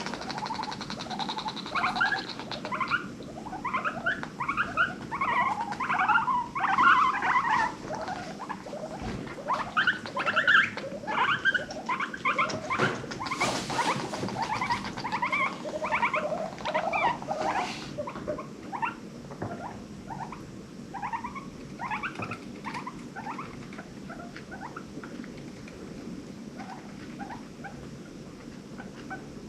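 Guinea pigs squeaking in a rapid run of short, high calls, dense through the first half and thinning out later.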